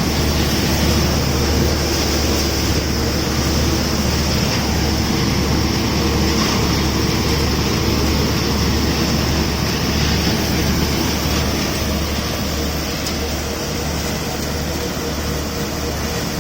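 Tractor-driven paddy thresher running steadily: a constant low hum under even mechanical noise, with no breaks or changes in speed.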